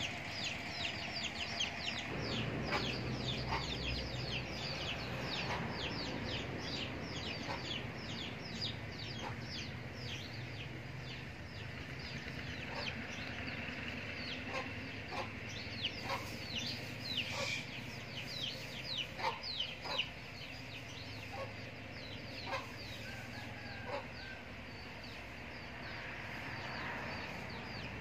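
Birds calling: a dense run of short, high, falling chirps, several a second, with scattered lower clicks between them.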